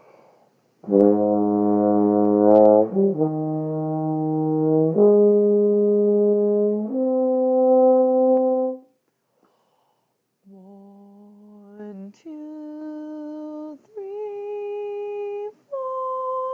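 Euphonium playing a slow ascending four-note lip slur on first valve, each note held about two seconds. After a short pause a woman sings the same four notes an octave higher.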